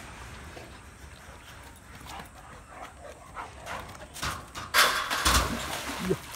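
A large Presa Canario leaps into a shallow water trough, with a heavy splash and thud about five seconds in, the loudest sound here. It is preceded by light scuffling on the turf and a knock, and followed by water sloshing.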